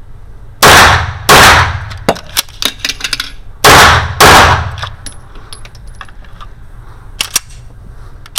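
Bul 1911 single-stack 9mm pistol fired twice in quick succession, about two-thirds of a second apart. A run of small metallic clicks from the magazine reload follows, then two more quick shots.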